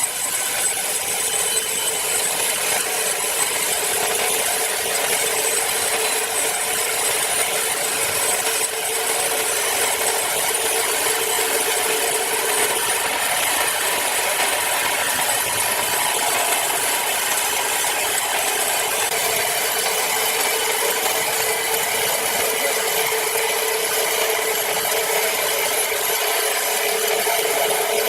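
Power saw cutting steadily through a large log, a continuous loud sawing noise with a steady pitched whine that barely changes.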